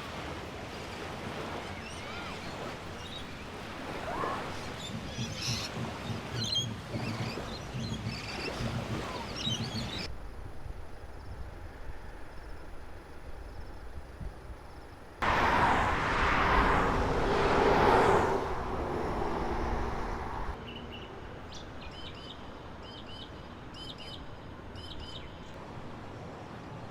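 Outdoor ambience in several cuts: small birds chirping over a steady background noise, a louder rush of noise in the middle, then a run of short, evenly repeated high chirps near the end.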